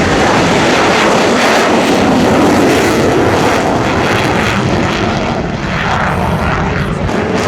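F-16 Fighting Falcon jet engine roaring loudly and steadily as the fighter flies its demonstration, easing slightly about five seconds in.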